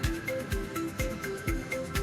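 Background music with a steady beat, about two beats a second, and short melodic notes.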